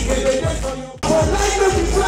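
A Nigerian pop song with a deep kick drum and sung vocals. The music fades down and cuts back in suddenly about halfway through.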